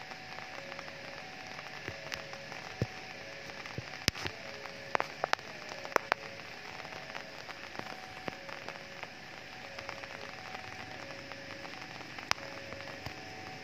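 Rain falling steadily, with scattered sharp drips and taps landing close by. A faint two-note tone repeats in the background.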